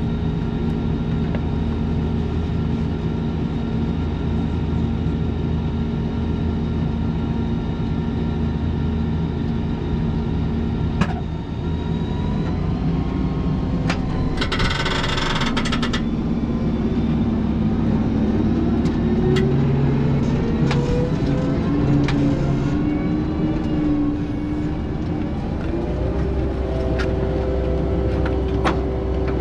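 Fendt 828 Vario tractor's six-cylinder diesel running at a steady idle, then rising in pitch in steps as the tractor and planter pull away, settling at a higher, steady note near the end. A brief hiss about halfway through and a few sharp metallic clicks from the planter.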